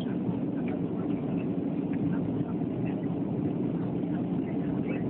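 Airplane's steady low rumble.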